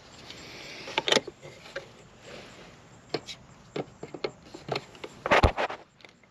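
Sharp plastic clicks and knocks as the flip lid of an outdoor outlet's weatherproof cover is lifted and a plug-in receptacle tester is pushed into the GFCI receptacle. The loudest knock comes a little past five seconds in.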